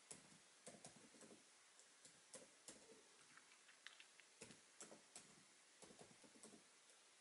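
Faint, irregular keystrokes on a computer keyboard: a password being typed in.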